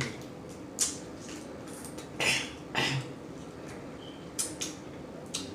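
Blue crab being eaten up close: a handful of short, sharp cracks and wet smacking chews. The loudest two come about half a second apart near the middle.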